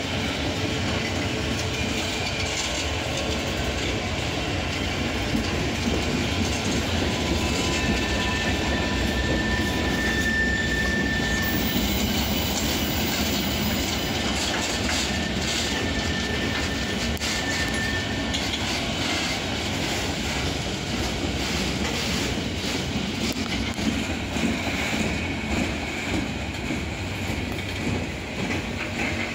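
Freight train flatcars rolling past close by: a steady rumble of steel wheels on rail with a clickety-clack of wheels over the rail joints. A thin, high squeal from the wheels comes and goes twice, a few seconds each time, partway through.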